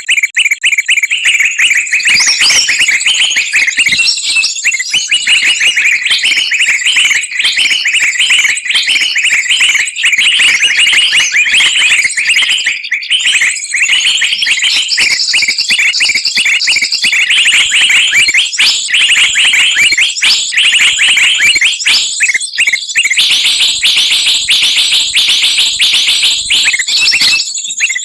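Bird-trapping lure recording: a loud, dense mix of many small songbirds chirping and calling rapidly over one another, with a steady thin high tone running underneath. The mix of calls changes about three quarters of the way through.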